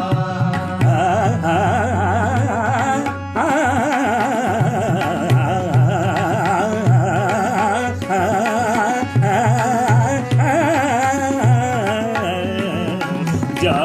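Indian classical-style music: a melody wavering through quick ornaments over a low bass, with tabla. No lyrics are sung.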